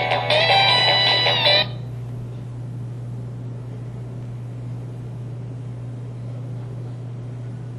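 Samsung SCH-V420 mobile phone playing a polyphonic ringtone melody through its speaker, which stops suddenly about one and a half seconds in, leaving a steady low hum.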